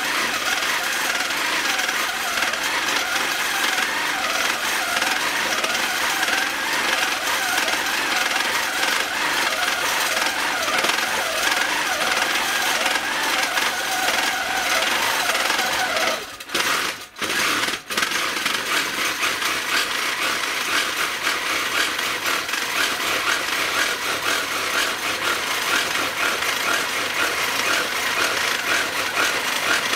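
Handi Quilter longarm quilting machine stitching: a steady, fast clatter of the needle mechanism as it is guided over the quilt. It drops out briefly just past halfway, then runs on.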